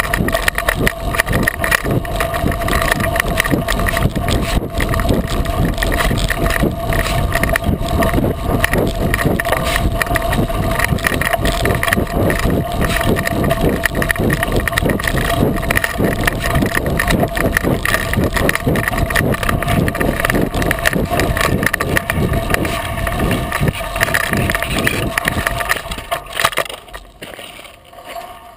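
Rolling noise of a 36-inch Coker unicycle tyre on a dirt-and-gravel trail, a dense crunching and rattling heard through a camera mounted on the unicycle. It dies down about two seconds before the end as the unicycle stops.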